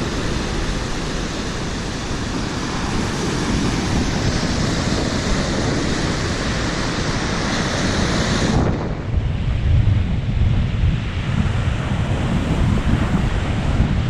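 Lake Erie storm surf: waves breaking and water washing up over the sand in a steady hiss. About eight and a half seconds in, the sound changes abruptly to heavier low wind buffeting on the microphone over the breaking waves.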